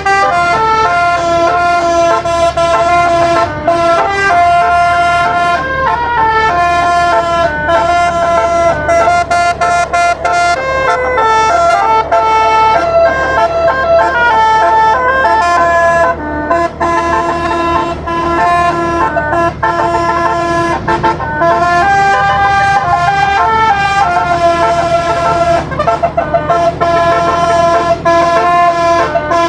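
A basuri telolet air horn, a set of 12 tuned trumpets driven by an electronic module, playing a melody. Several horn notes sound together and step from pitch to pitch without pause.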